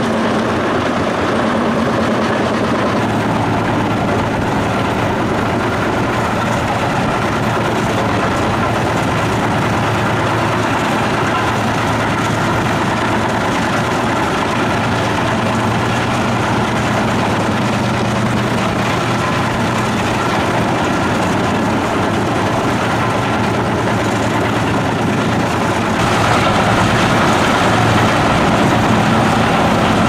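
Lippel RAPTOR 900 mobile wood chipper running steadily under load: its 318 hp diesel engine drones while the cutting system grinds recycled wood and pallets into chips. The noise grows louder near the end.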